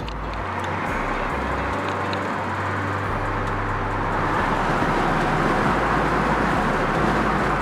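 Honda Prelude being driven: steady engine and road noise, slowly growing louder.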